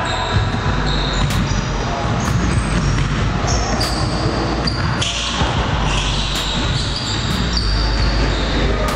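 A basketball game on a hardwood gym floor: a ball bouncing, with players' voices.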